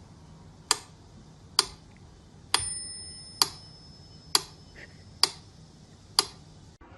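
Sharp, evenly spaced ticks, seven of them a little under a second apart, like a clock ticking. A faint high steady tone joins about two and a half seconds in and fades out before the last ticks.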